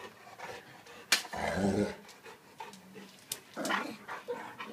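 An Alaskan malamute and a small dog play-fighting, with two loud dog vocalizations: a low one about a second in and a shorter one near the end.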